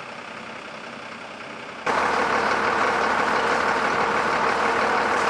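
Low street background, then, about two seconds in, a loud truck engine running steadily with a constant hum.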